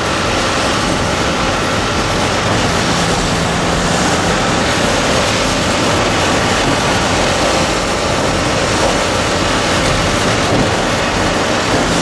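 Heavy-duty wood grinder running and shredding wood, a loud, steady, unbroken machine noise.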